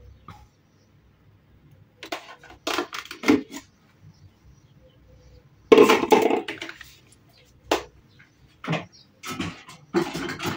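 Kitchen dishes and utensils clattering in several short bursts, the loudest one about six seconds in.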